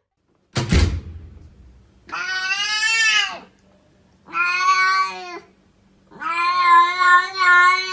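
A thump about half a second in, then a domestic cat giving three long, drawn-out meows, the last one the longest.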